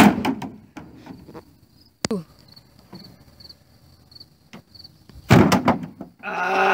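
Hollow thuds of a large plastic bucket landing on grass: a knock at the start, another about two seconds in, and a heavier hit a little past five seconds. Insects chirp faintly in between, and a person yells near the end.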